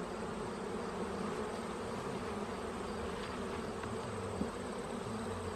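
Honeybees buzzing steadily in a dense, continuous hum around an opened hive; the colony is stirred up by the hive being opened.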